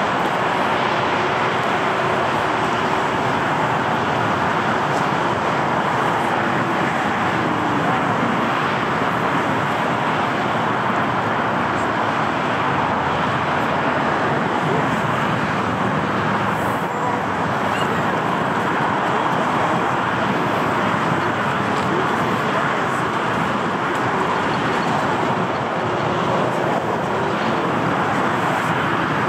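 Steady airport noise dominated by jet engines running at taxi power across the airfield. The sound is an even noise that holds the same level throughout, with no sharp events.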